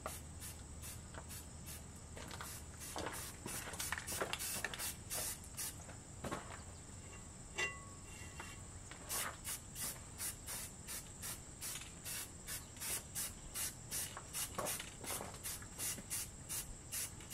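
Aerosol spray-paint can spraying in short hissing bursts, coming about twice a second in the second half, as paint goes onto a rear axle.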